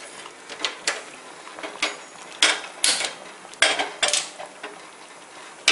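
A gas stove burner being lit under a small tempering pan: a string of sharp metallic clicks and clacks, some in quick pairs, about eight in all.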